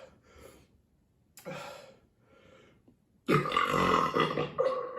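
A man's long, loud beer burp, starting a little over three seconds in and lasting about a second and a half, after a few short, quieter breathy sounds.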